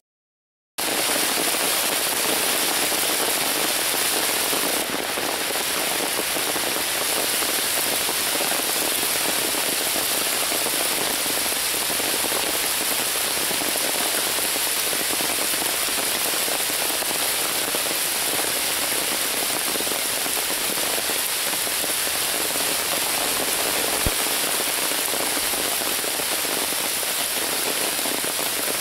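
Steady rain falling through the leafy woodland canopy, an even hiss that starts about a second in.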